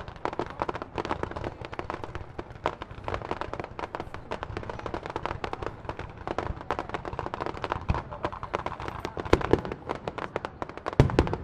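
Fireworks crackling and popping in a dense, rapid stream of small reports, with a few louder bangs near the end as bigger shells burst.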